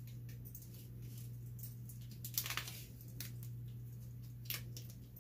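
Duct tape being handled and wrapped around an axe head: light rustles and small clicks, with a short ripping burst about halfway through as a strip is pulled off the roll, and a briefer one near the end.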